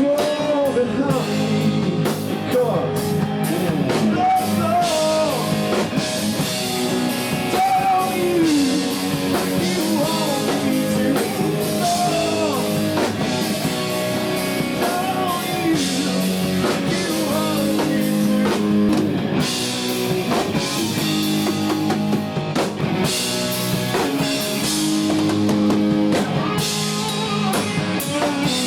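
Blues-rock band playing live: singing over electric guitar, bass and a drum kit.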